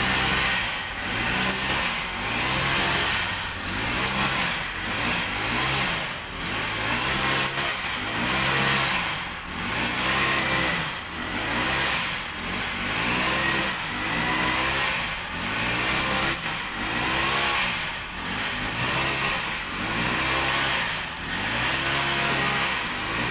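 Brush cutter engine running at work, its pitch and loudness rising and falling every second or two as the cutter sweeps through grass.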